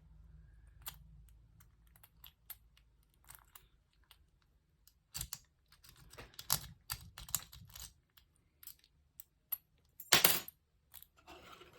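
Lock picking: a metal rake and tension tool working in a pin-tumbler lock, making a string of small irregular clicks and scrapes, busier in the second half, with a louder clatter about ten seconds in.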